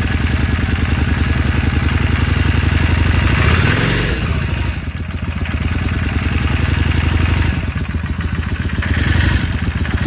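Yamaha Drag Star XVS650's V-twin engine running, with a brief rev that rises and falls about three and a half seconds in. The engine has a noise that the owner cannot identify and wants diagnosed.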